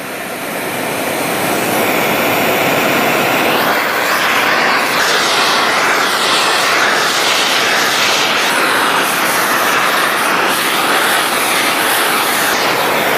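Oxy-acetylene torch with a rosebud heating tip, turned up high, burning with a steady hiss. It grows louder over the first couple of seconds and then holds steady while it heats aluminium sheet to anneal it.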